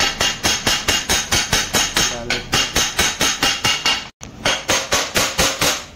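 Hammer tapping gently and quickly on a Hero Splendor Plus engine's crankcase half, about four blows a second, driving the case half down until it seats on the other half. There is a short break about four seconds in.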